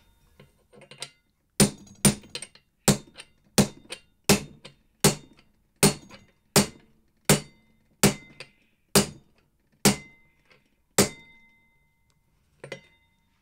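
Hammer striking a steel socket used as a drift, driving a new front wheel bearing down into the hub of a Suzuki GSF 650 Bandit wheel. About a dozen sharp metallic taps come roughly one every three-quarters of a second, each with a short ring, and stop a couple of seconds before the end.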